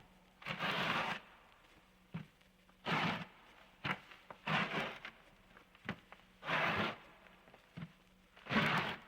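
Recorded sound effect: slow, regular noisy scraping bursts about every two seconds, each lasting about half a second, with a short sharp click between them, over a faint steady low hum.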